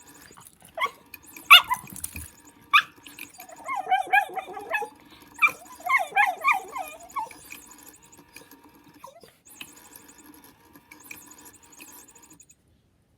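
Miniature schnauzer puppy giving a few short, sharp yips, then whining in two wavering bouts of a second or more each during play.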